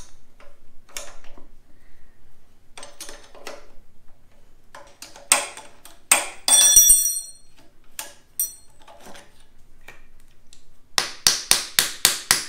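Hand wrench working the bolts of a seized, rusted go-kart brake caliper: scattered metal clicks and knocks, a loud metallic clank that rings briefly around the middle, then a quick run of about ten sharp clicks near the end.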